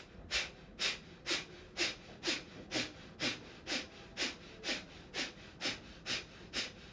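Kapalbhati breathing: short, forceful exhalations snapped out through both nostrils in a steady rhythm of about two a second, each a sharp puff of breath from a push of the belly.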